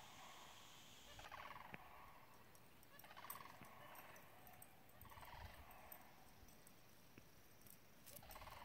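Distant sandhill cranes giving faint, rolling, rattling calls about every two seconds, each call trailing off in an echo.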